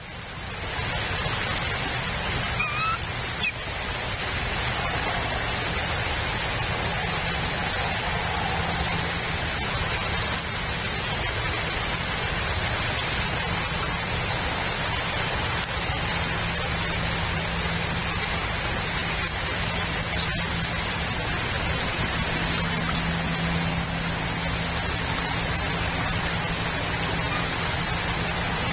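Steady rain hiss over a low, steady hum, with a faint short bird call about three seconds in.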